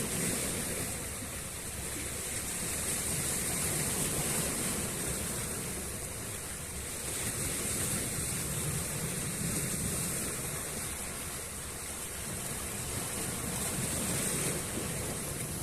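Sea waves washing onto the shore, a steady surf noise that swells and ebbs every four to five seconds.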